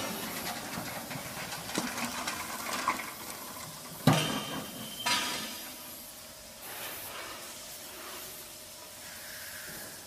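Steel doors of a TCM-SG10 vertical baler being handled, with a sharp metal clank about four seconds in and another a second later, over a steady hiss. Cardboard and shredded paper being handled rustle before the clanks.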